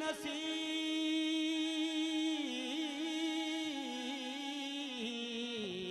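A male singer holds one long sung note of a Saraiki folk song. The note is steady for about two seconds, then wavers in pitch through ornaments and dips lower near the end.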